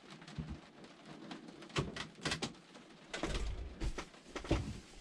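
Scattered light knocks and clicks of objects being handled and set down on a wooden cabin table, with a couple of low thuds about two-thirds of the way through.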